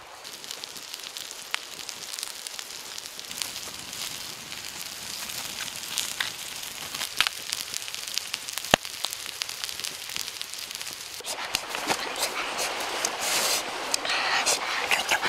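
Chicken pieces and eggs sizzling and crackling as they fry on a hot stone slab: a steady hiss with many sharp pops. The noise grows louder and busier from about eleven seconds in.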